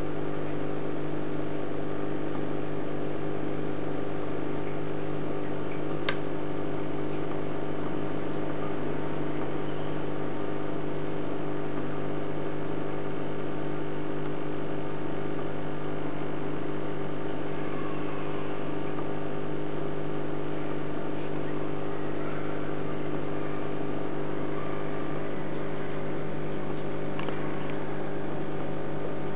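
Aquarium filter pump running with a steady electric hum, and a single brief click about six seconds in.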